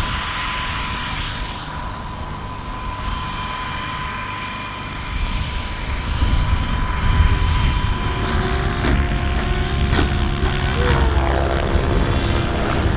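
A motor runs steadily with a strong low rumble and a held whine. About eight seconds in, the whine gives way to lower steady tones.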